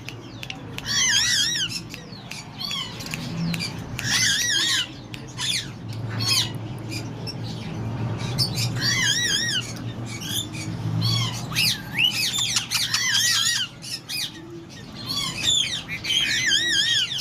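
A pair of slaty-headed parakeets squawking again and again in short, shrill, wavering calls, with a low steady hum underneath.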